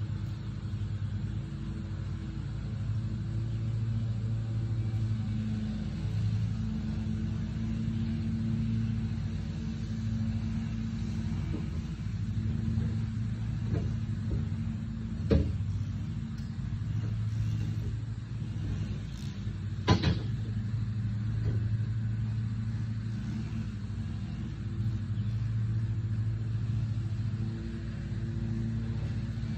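An engine running steadily at idle, its low hum swelling and easing, with two sharp knocks about five seconds apart near the middle.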